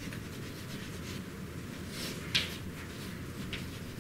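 Chalk writing on a blackboard: a few short scratches and taps of chalk strokes, most of them about two seconds in, over a steady low room hum.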